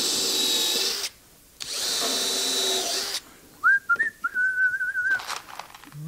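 Power drill running in two bursts, about a second and then about a second and a half, working into the corner of a wooden bee box. A man then whistles a short wavering tune.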